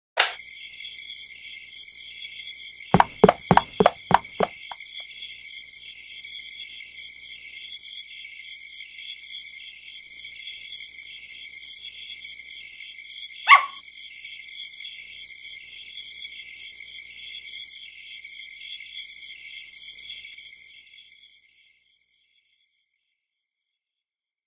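Crickets chirping in a steady, evenly repeating rhythm, the night sound after the lights go out, fading away near the end. A quick run of about six clicks comes about three seconds in, and a short falling squeak a little past the middle.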